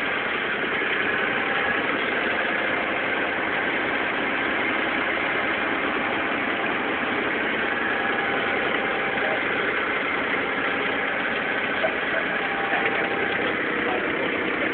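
A Bavaria 31 sailing yacht's inboard diesel engine running steadily, driving the boat while motor sailing.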